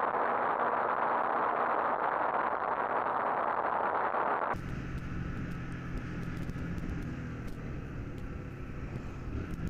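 Rushing wind and road noise on the microphone of a motorcycle riding at speed. About four and a half seconds in it cuts abruptly to a quieter, steady low hum of a motorcycle engine running at low speed in traffic.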